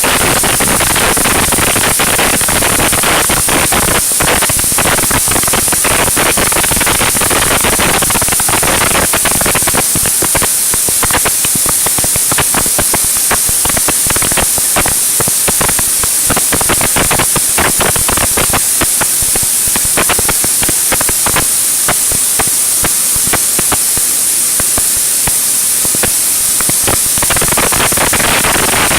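Mini wheat/maize flour milling machine running: a loud, steady hiss with dense crackle and no clear pitched hum.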